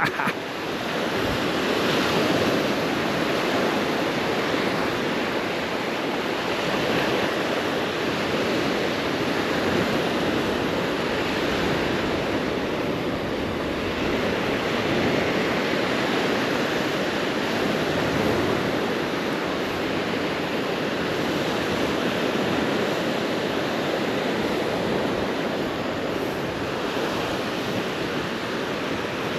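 Surf breaking and washing up a sandy beach: a steady rush of water that swells and eases slowly.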